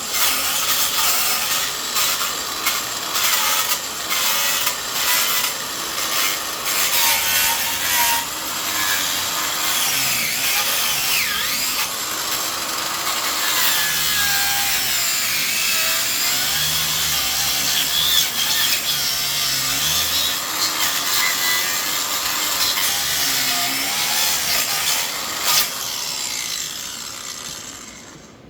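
Battery-powered DeWalt angle grinder, running at low speed with a chainsaw-chain wheel, cutting into wood: a steady rasping of chain teeth taking off chunks. It fades away near the end.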